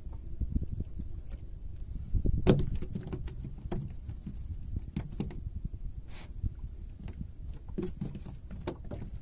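A string of sharp clicks and knocks from small fish and fishing tackle being handled at a plastic bucket on a fibreglass boat, the loudest about two and a half seconds in, over a steady low rumble of wind.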